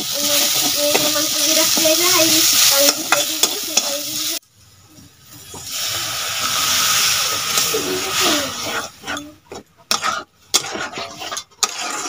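Food sizzling in oil in a steel kadai while a metal spatula scrapes and clinks against the pan. The sizzling breaks off suddenly after about four seconds, swells again when water is poured into the hot pan, and gives way to intermittent clatter of stirring.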